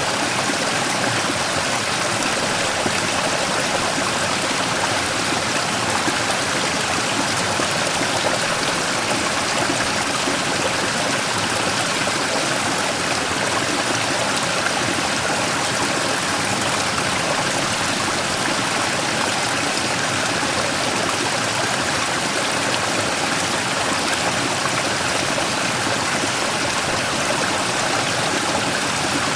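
Mountain stream rushing and splashing over a large rock, a steady, even flow of water.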